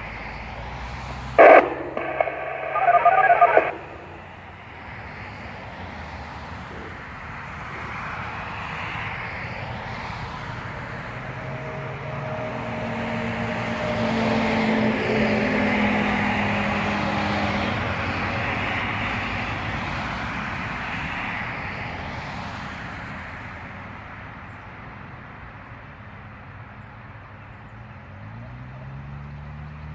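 The Whelen WPS-2750 warning siren's recorded voice test message ends through its loudspeakers in the first few seconds. A steady rush of background noise then swells and fades over about twenty seconds. Near the end the siren starts winding up for its short alert tone, rising in pitch.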